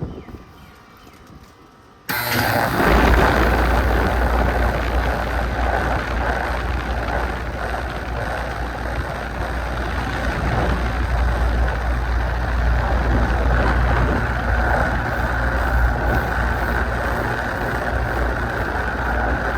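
Outdoor condenser of a 1999 3.5-ton R-22 central air conditioner kicking on suddenly about two seconds in, then running steadily: the compressor's low hum under the rush of the condenser fan. It starts without any delay.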